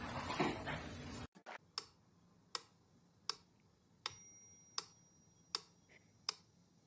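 A loud noisy stretch cuts off abruptly just over a second in. Then comes a steady ticking, about four ticks every three seconds, like a clock, with a brief high tone near the middle.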